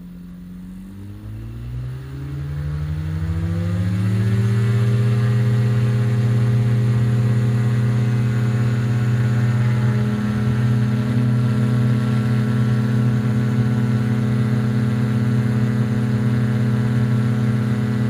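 Rotax 582 two-stroke engine and three-blade propeller of a Spectrum Beaver RX 550 ultralight opening up from idle to full takeoff power, its pitch and loudness rising over the first four seconds, then running steadily at full power through the takeoff roll and climb-out.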